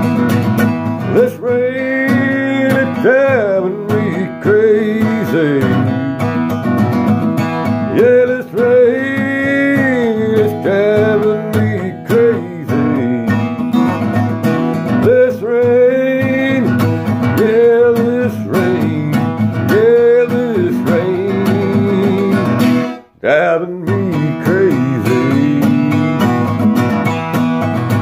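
Acoustic guitar playing a country-style tune, chords held under a melody that slides up and down in pitch. The music cuts out for an instant about 23 seconds in, then carries on.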